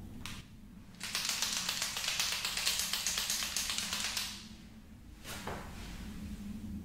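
White liquid chalk marker shaken hard for about three seconds, its mixing ball rattling rapidly inside the barrel.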